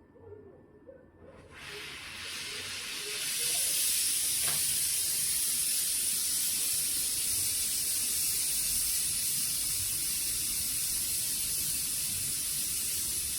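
Oxy-fuel brazing torch hissing: the gas comes on about a second in, builds over a couple of seconds, then holds as a steady high hiss.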